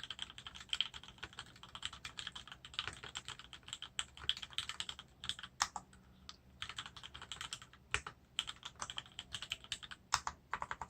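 Typing on a 60% mechanical keyboard with linear Gateron Black switches on 62 g springs: fast runs of keystrokes with a few short pauses and single strokes partway through.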